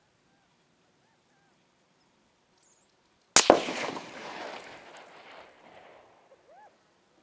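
A single AR-15 rifle shot: one sharp, loud crack about three and a half seconds in, followed by a long echo that rolls away and fades over about three seconds.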